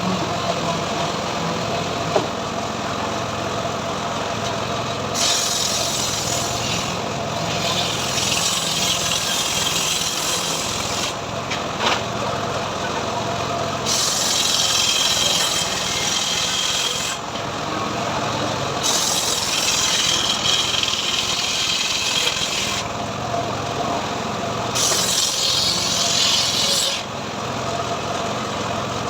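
Homemade engine-driven sawmill running steadily while its saw blade cuts teak into boards, the hiss of the blade in the wood coming and going in about five stretches of two to four seconds each.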